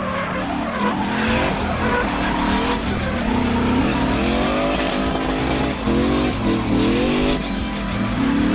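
Turbocharged BMW M60B40 4.0-litre V8 in a drifting BMW E30, revving hard, its revs climbing and dropping several times, over the screech of sliding tyres.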